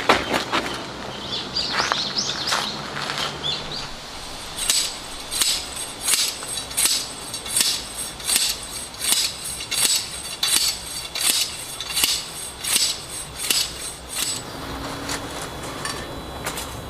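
A hammer striking a metal tent peg over and over, a dozen or so evenly paced blows with a bright metallic ring, driving the peg into the ground.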